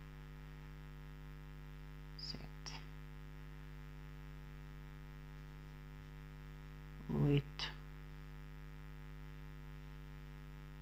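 Steady electrical mains hum in the recording, a low buzz with many even overtones, and one short spoken word about seven seconds in.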